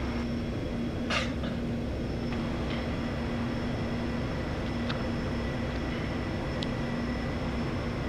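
Steady cockpit drone of an ATR 72 turboprop airliner on final approach, with an even hum and a faint high whine. A brief short noise about a second in.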